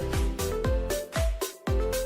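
Electronic background music with a steady four-on-the-floor kick beat, about two beats a second, and bright synth notes.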